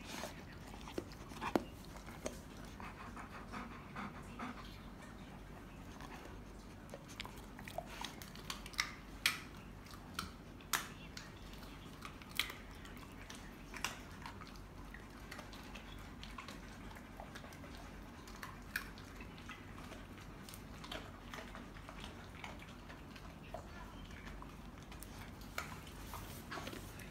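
A Belgian Malinois chewing purple carrot pieces: irregular sharp crunches and clicks, several louder ones in the first half.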